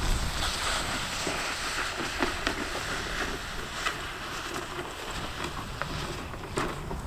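Wind blowing over the microphone: a steady low rumble under an even hiss, with a few faint scattered clicks.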